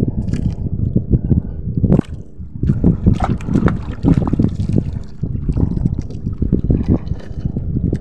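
Wind buffeting the microphone over waves slapping against a small wooden outrigger boat's hull, an irregular low rush with uneven surges.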